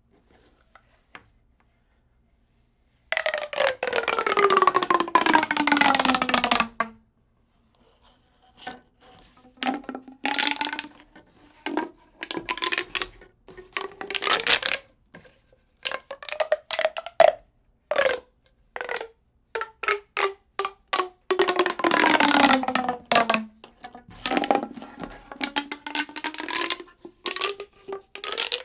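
An expanding tube being stretched and worked, making dense crackling clicks. Twice it gives a long pitched tone that falls steadily in pitch over about three seconds; in between come many short, sharp clicky rattles.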